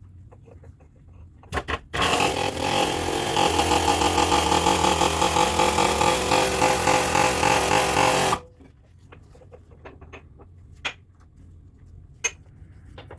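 A power tool runs loud for about six seconds with a fast, even pulsing, then cuts off suddenly. Two short clicks come just before it starts, and a few light knocks follow.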